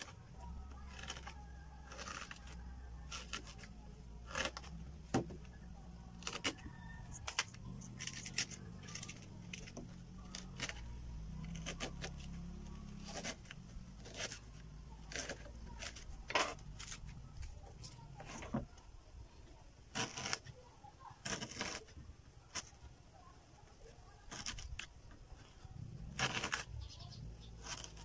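A small knife cutting notches into a fresh banana leaf midrib on a wooden table: irregular crisp clicks and snaps, one or two a second, over a low background hum.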